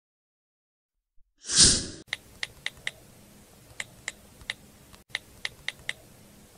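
An editing sound effect: a brief whoosh about a second and a half in, then a run of faint, short clicking ticks in small irregular groups, the kind of sound laid under a 'loading' animation.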